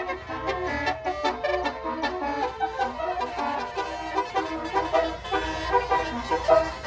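A bus's musical air horn (a 'basuri' telolet horn) playing a quick melody of short tooted notes, with the bus engine running underneath.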